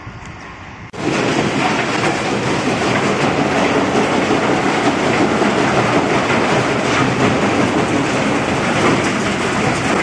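Steel slag processing machinery running: conveyor belts and chutes carrying and dropping crushed slag, a loud, dense, continuous rattling clatter that starts abruptly about a second in.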